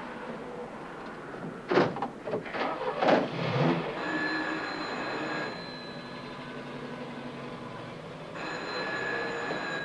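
Telephone ringing twice, each ring lasting about a second and a half, about four seconds apart. Before the rings, a few sharp knocks about two seconds in.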